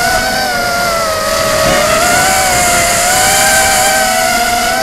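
A 250-size FPV racing quadcopter's brushless motors and propellers whining, heard from the onboard camera. The pitch wavers with the throttle, dipping a little before the middle and climbing again, over a steady rush of wind noise.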